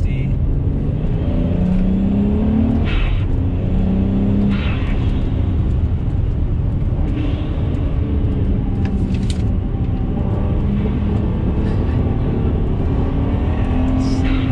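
BMW 335i's twin-turbo N54 inline-six heard from inside the cabin on a hard drive, its pitch rising and falling several times as it revs up and eases off, over a steady rumble of road and tyre noise.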